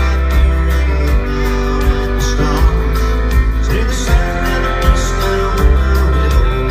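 Live country band playing a song, with acoustic and electric guitars, fiddle, keyboards and drums, over a steady drum beat.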